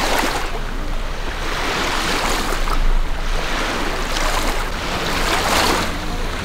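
Pond water splashing in irregular surges, with wind rumbling on the microphone.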